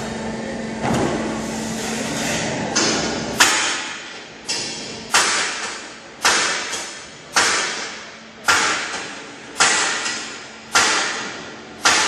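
Sharp metallic bangs about once a second, each ringing out as it fades, starting about three seconds in. Before them a steady machine hum runs.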